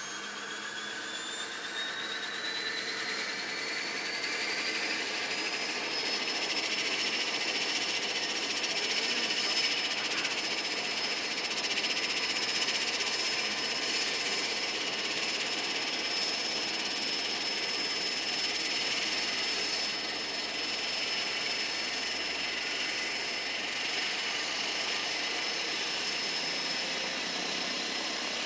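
Cessna Caravan single-engine turboprop running on the ground: a turbine whine rises in pitch over the first few seconds, then holds steady over the engine and propeller noise.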